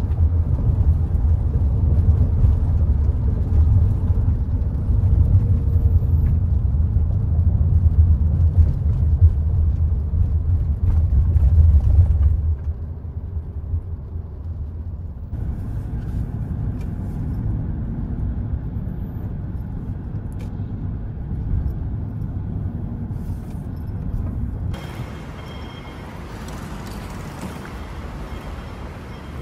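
Steady low road and engine rumble inside a Toyota minivan's cabin as it drives through city traffic, loudest in the first dozen seconds and quieter after that. Near the end it gives way to a lighter, hissier ambience.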